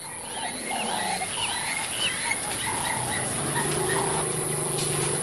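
Savanna ambience: small birds chirping in short, scattered calls, joined from about halfway by a low, steady, drawn-out rumble.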